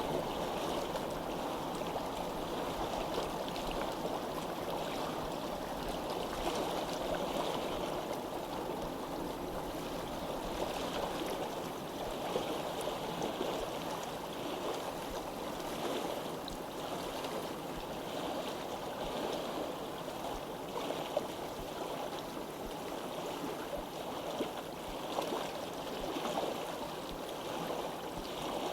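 Water flowing steadily in a stream.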